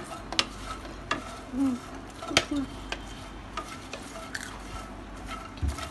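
Wooden spatula stirring freshly popped popcorn in a nonstick pan, with scattered sharp clicks and knocks of the spatula against the pan.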